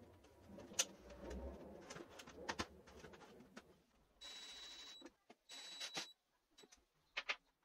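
Metal ball-bearing drawer slide rolling with a few sharp clicks. Then come two short spells of a steady high whine, under a second each, as screws are driven into a caster's metal mounting plate.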